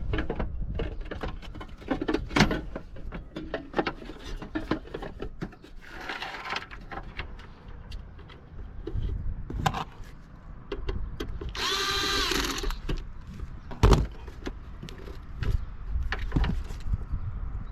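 Clicks and knocks of parts and wiring being handled and fitted as an RV air conditioner is reassembled. About twelve seconds in, a small power tool whirs for about a second and a half, followed shortly by one sharp knock.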